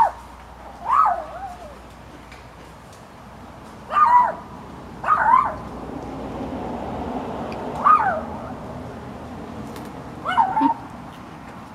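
A dog barking in short single barks, about six of them spaced a second to a few seconds apart, each sliding down in pitch.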